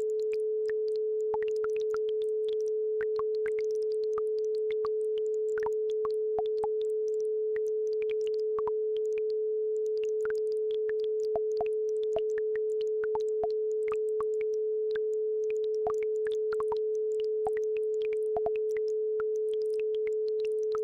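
A steady pure tone at 432 Hz, the base frequency of an isochronic-tone track. Underneath it run faint, scattered plinks and trickles of a babbling brook.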